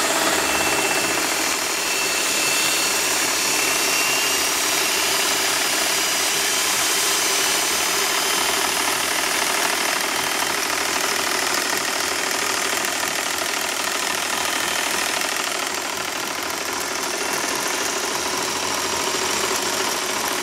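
Three vintage Singer sewing machines running at once: a 1951 Featherweight 221, a 1962 328K and a 1961 500A Rocketeer. Their motors and stitching mechanisms make a steady combined whir, with a thin high whine that fades out about halfway through.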